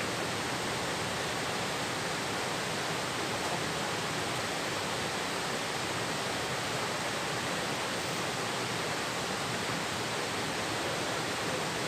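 Steady, even rushing of flowing river water, unchanging throughout.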